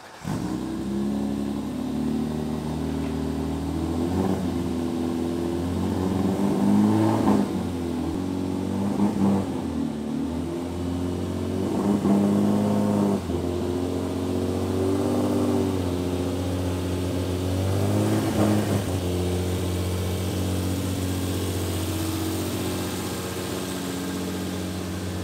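BMW E30 inline-six on individual throttle bodies, running at a fast idle and blipped about six times, each rev rising and falling back.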